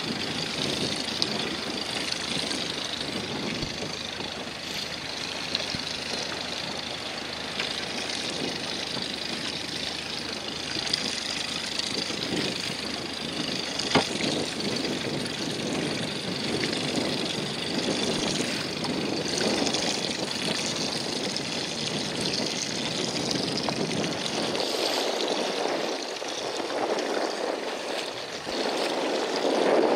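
Steady wash of choppy sea water splashing around a small boat, with wind on the microphone and a single sharp knock about halfway through.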